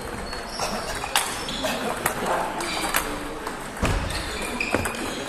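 Table tennis balls being struck: sharp, irregular clicks of the ball off bats and tabletops in a sports hall, over a murmur of voices.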